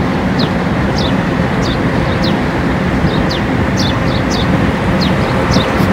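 Birds chirping in short, falling chirps about twice a second over a steady low rumble of street traffic.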